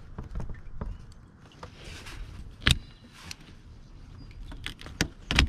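Scattered sharp clicks and knocks of hands working the clip on the top radiator hose connector at the thermostat housing, the loudest about two and a half seconds in and two more close together near the end.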